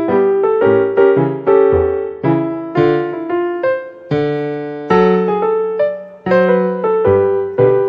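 Background piano music: a simple melody of struck notes, roughly two a second, each fading after it is struck, over lower bass notes.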